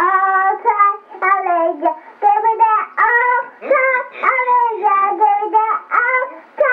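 A young girl singing a tune on her own, with no accompaniment, in short held notes that bend in pitch, heard on a 1970s reel-to-reel home tape recording.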